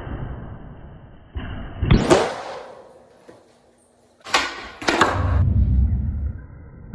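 Skateboard on a concrete floor: wheels rolling, with sharp clacks of the board hitting the ground, the loudest about two seconds in and more a little after four seconds, then wheels rolling again.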